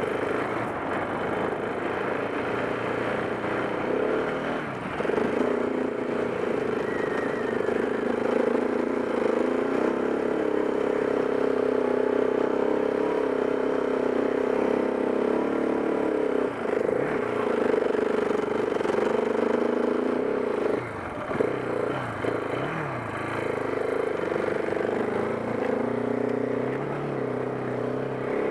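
KTM 690 Enduro R's single-cylinder four-stroke engine running steadily under load while riding in soft sand, picked up by a helmet camera. The throttle drops off briefly a few times and then picks up again.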